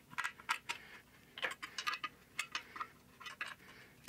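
Hand ratchet wrench clicking in short, irregular bursts as nuts are run down to fasten a one-piece axle at the end of the axle housing.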